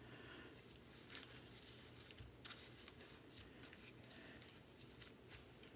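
Near silence: a few faint rustles and light ticks from yarn being knotted around a cardboard tube.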